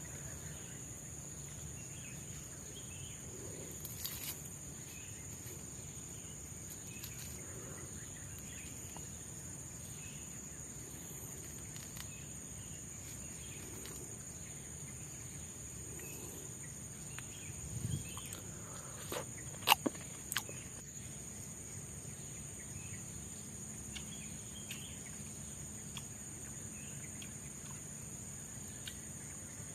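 Forest insects keeping up a steady high-pitched drone of several held tones. About two-thirds of the way through come a low thud and a few sharp clicks or knocks, the loudest sounds here.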